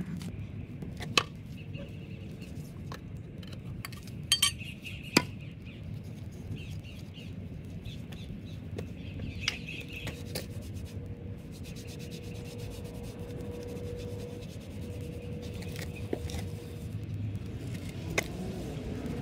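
Scattered sharp clinks and knocks of steel and wood as a homemade machete, a wooden mallet and a tin can are handled on a wooden chopping stump, about six in all, the loudest about a second in and around four to five seconds in, over a steady low outdoor rumble.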